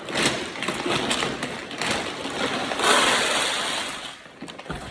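Plastic food bucket being handled and worked on, with scraping and a few knocks, and a louder harsh scraping about three seconds in that lasts about a second.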